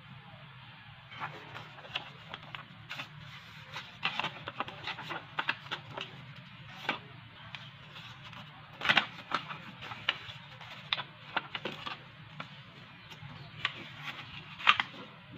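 A sheet of paper being folded and creased by hand against a wooden tabletop: irregular crinkles, rustles and sharp taps, loudest about nine seconds in and again near the end, over a faint steady low hum.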